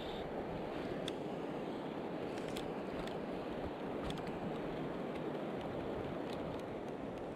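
Steady rushing of river water, with a few faint ticks scattered through it.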